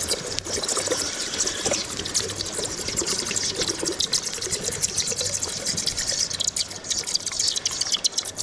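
Steady hissing with dense crackling from a lost-foam aluminum pour: molten aluminum running into a sand mold and burning out the foam pattern.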